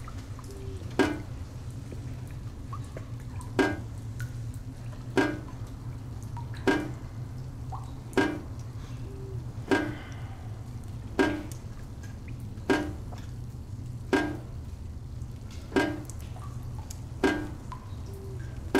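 Slow, regular water drops, one about every second and a half, each landing with a sharp ringing plink, with a few fainter drips in between, over a steady low hum.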